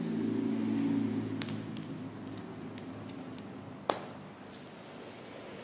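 Light clicks and taps of a brake caliper bracket and a grease brush being handled while its slide pins are lubed, with one sharp click a little before four seconds. A steady low hum fades out in the first couple of seconds.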